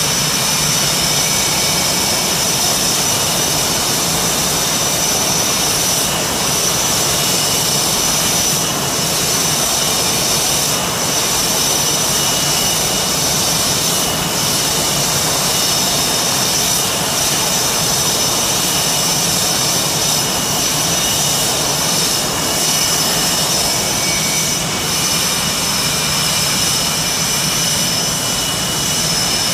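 Blue Angels F/A-18 Hornet jet engines idling: a steady, loud rush of jet noise with several high, steady whining tones.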